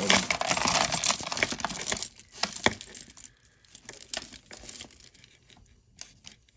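Tangled beaded costume-jewelry strands and chains rattling and clinking against each other as they are pulled apart and lifted from a heap of jewelry. A dense rattle for about two seconds, then scattered small clicks.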